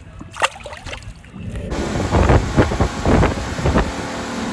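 A sharp water splash as a musky is let go at the surface, then, from about a second and a half in, an outboard-powered fishing boat running fast over choppy water: rushing water and wind buffeting the microphone in repeated surges.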